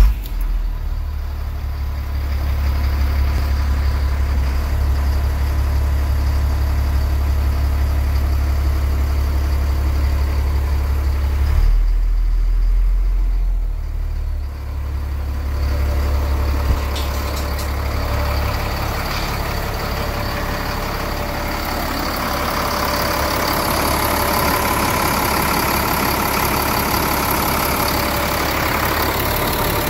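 The Caterpillar diesel engine of a 2000 Chevrolet C6500 truck idling steadily just after a start. For the first half it is heard from inside the cab as a deep steady hum. From about seventeen seconds in it is heard up close at the open engine bay, where the mechanical clatter and higher engine noise come through more.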